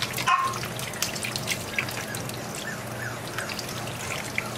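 Kitchen faucet water running and trickling into a stainless steel sink and over a wet puppy being bathed, with small drips and splashes.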